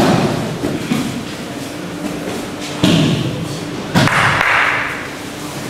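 Aikido breakfalls on tatami mats: bodies landing with heavy thuds, three of them, at the start, near three seconds and about four seconds in, the last followed by a short hiss.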